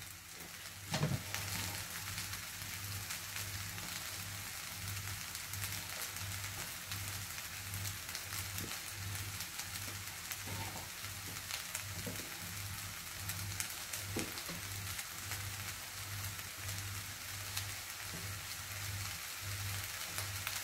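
Egg fried rice with chicken, peas and carrots sizzling gently in a frying pan, with a soft knock of the wooden spatula about a second in. A low hum pulses about once a second underneath.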